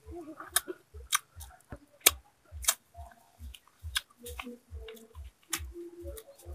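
A man chewing grilled snakehead fish, his mouth smacking in sharp clicks about twice a second. Under it a soft low thud repeats evenly about three times a second.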